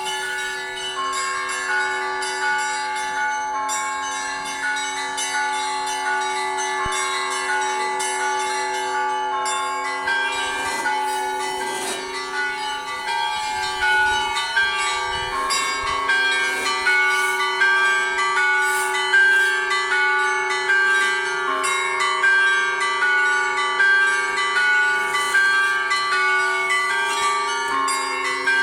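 Russian Orthodox church bell ringing: several bells of different pitches, the low bells humming on under repeated quick strikes of higher bells, growing louder about halfway through.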